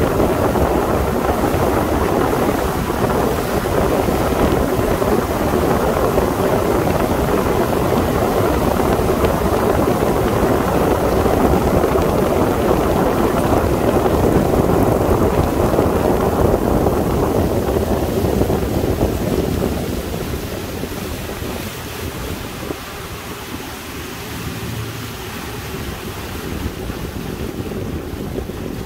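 Sea Ray 21 MC motorboat under way: a steady rush of engine, hull-on-water and wind noise, which becomes quieter and duller about twenty seconds in.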